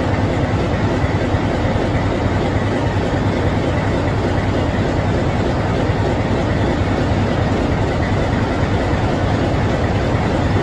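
Diesel locomotive engine running steadily with a low hum as the locomotive moves slowly forward.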